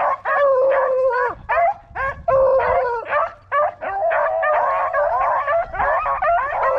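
A pack of rabbit-hunting dogs baying together without a break, several voices overlapping: the pack is in full cry, running a rabbit's trail.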